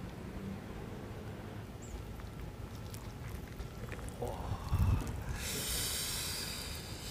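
Hands tearing apart a roast pork knuckle: a low squelching thump about two-thirds of the way in, then about two seconds of loud ripping hiss as the skin and meat pull away from the bone, over a steady low rumble.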